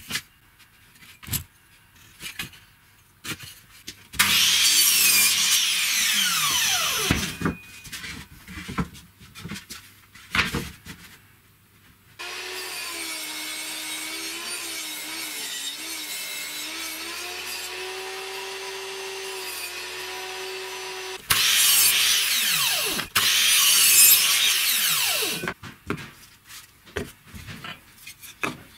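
Table saw cutting pine boards: two loud cuts of a few seconds each, with the saw's motor humming steadily between them. Light knocks and clatter of wood being handled come at the start and end.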